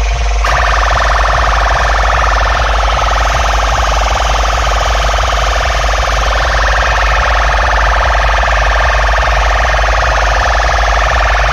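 Very loud siren-like electronic effect blasted through a DJ loudspeaker system, a fast-warbling high tone over a heavy, continuous deep bass.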